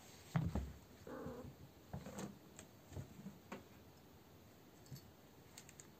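Cats scuffling in a carpet-covered cat-tree house: a couple of soft thumps about half a second in, rustling and scraping, then a few scattered light clicks.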